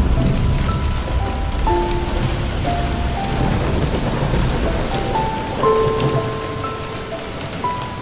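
Steady heavy rain with a low rumble underneath that eases off in the second half, and a slow melody of single held notes playing softly over it.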